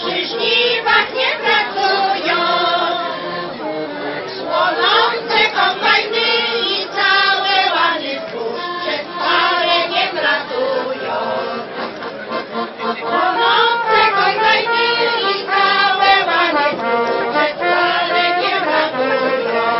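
Women's choir singing a Polish folk song, accompanied by trumpets.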